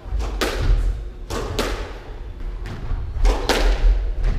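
Squash rally: the ball cracks sharply off the rackets and court walls several times, about once a second, over the low thudding of the players' footsteps on the wooden court floor.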